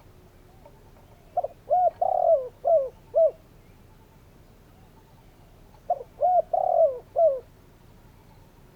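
Spotted dove calling: two phrases of about five short coos each, a few seconds apart, the middle coo of each phrase the longest and loudest.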